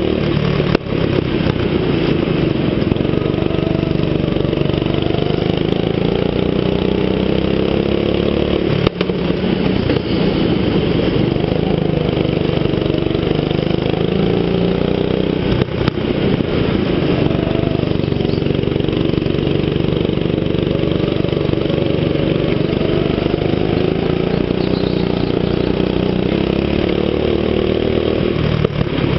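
Go-kart engine running under way, its pitch rising and falling as it speeds up and slows, heard from on board the kart. A few brief knocks break in, about every seven or eight seconds.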